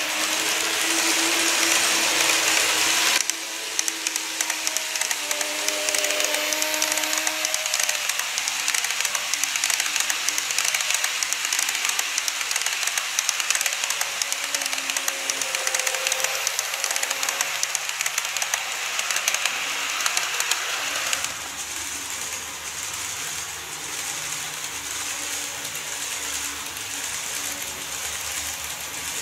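Model electric trains, a TOMIX 103 series and a KATO E231 series, running over sectional track: a dense rapid clicking of wheels on the rails with a faint motor hum. The sound changes abruptly about three seconds in and again a little after twenty seconds.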